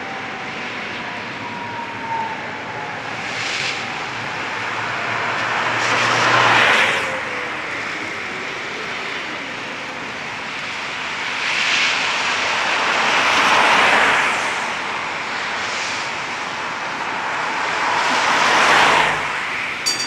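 Steady rain hiss with cars passing on wet asphalt, their tyre noise swelling and fading three times, loudest about six, thirteen and nineteen seconds in. Over the first several seconds a faint falling whine comes from a Tatra T3 tram's motors as it slows into the stop.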